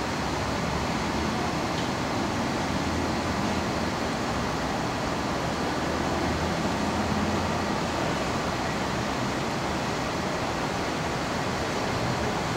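Steady ambient rush of background noise, like distant road traffic, with no single event standing out and no train yet audible.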